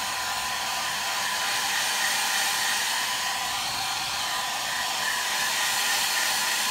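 Hair dryer blowing steadily, a constant airy hiss, drying a freshly applied first coat of leather paint on a car seat.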